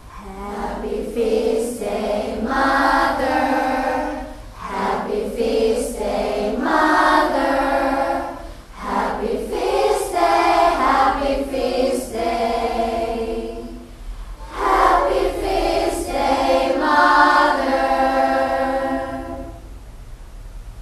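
A choir of schoolgirls and women singing together in sustained phrases, with short breaths between phrases, and stopping shortly before the end.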